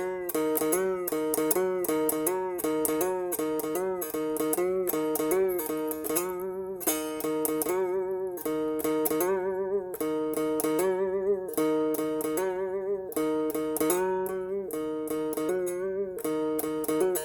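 Music played on a plucked string instrument: quickly repeated picked notes over a held drone, with some notes wavering and bending in pitch.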